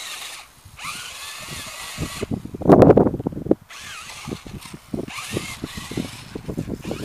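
Electric motor and gears of an HB-P1801 1:18 RC rock crawler whining, rising and falling in pitch as the throttle changes. Its tyres and chassis knock and crunch over sandy, stony ground, loudest about three seconds in.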